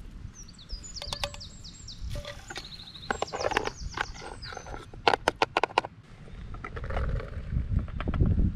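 A songbird singing a quick run of high, falling notes for the first four seconds or so, over a low rumbling noise. Several sharp clicks and knocks come in clusters, loudest a little past the middle, and the rumble swells near the end.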